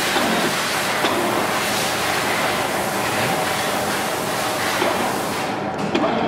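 Poreba TPK90A/3M heavy-duty engine lathe running with its slides moving in rapid traverse, a steady mechanical noise with a few light clicks. Near the end the high hiss briefly drops away.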